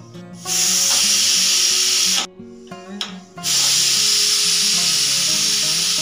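Pressure cooker whistle: steam forcing up the weighted valve on the lid and escaping in two loud hissing blasts, the first about two seconds long and the second starting about three and a half seconds in. This is the sign that the cooker has reached full pressure.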